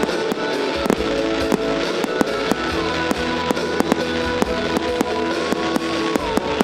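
Fireworks display: aerial shells bursting in rapid, irregular bangs, several a second, over music playing.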